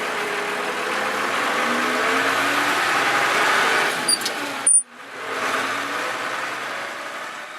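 Massey Ferguson 3095 tractor engine running steadily, with its pitch rising slightly, a couple of short clicks, and a brief break about two-thirds of the way through. It then fades out at the end.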